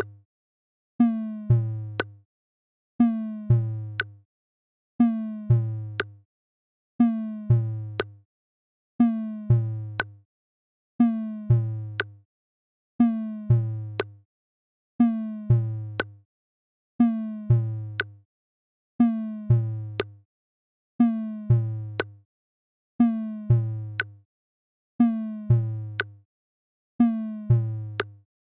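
Electronic background music: a two-second drum-machine and synthesizer loop repeating over and over. Each pass is a sharp click followed by tones stepping down in pitch to a low bass note that fades out.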